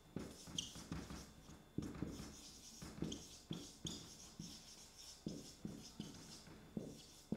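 Marker pen writing on a whiteboard: a quick, irregular run of short strokes and taps, with a few brief high squeaks of the felt tip.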